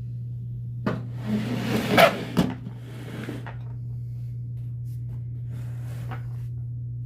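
A toolbox being handled and opened: a click about a second in, then a run of clunks and rattles that is loudest about two seconds in, and a few softer knocks later. A steady low hum runs underneath.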